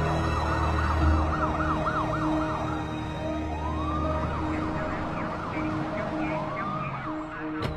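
Several emergency-vehicle sirens sounding over one another. A fast yelping cycle runs for about three seconds, then slower rising-and-falling wails come twice, over a low rumble that fades out partway through.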